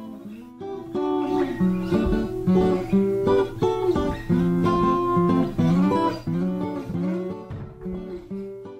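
Background music on acoustic guitar: plucked notes, some sliding in pitch, over a steady low note.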